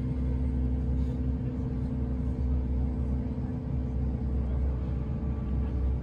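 Steady low engine drone and rumble of a moving motor vehicle, with a constant hum and no change in pitch.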